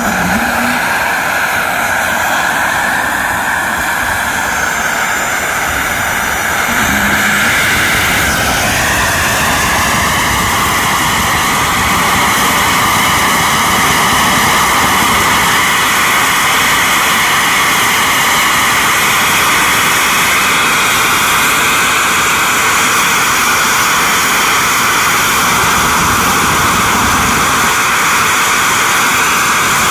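A homemade gas-fired turbocharger jet engine running with a loud, steady roar and a high whine. The whine wavers in pitch for the first several seconds, then holds steady as the running gets louder about seven seconds in.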